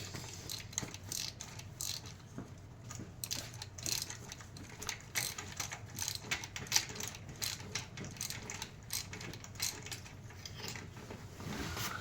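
Hand socket ratchet clicking in short irregular runs as it is worked back and forth on a fastener in the engine bay.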